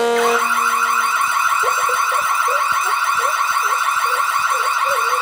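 A loud, rapidly warbling siren-like electronic tone, held at one pitch. Short chirping blips repeat beneath it from about a second and a half in.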